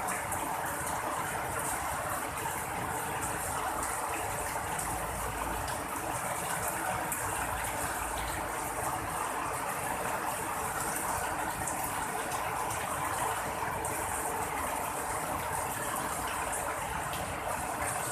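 Steady rain falling, an even hiss of water with no break or sudden crack.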